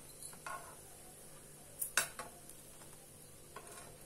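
Stainless steel spatula scraping and knocking against a non-stick tawa as bread slices are turned over: a few short knocks, the loudest about two seconds in.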